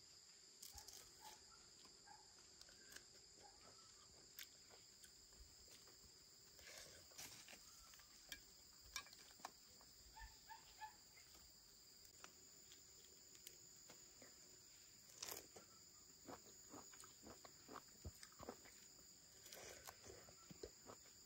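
Faint forest ambience: insects droning steadily at a high pitch, with scattered light clicks and rustles.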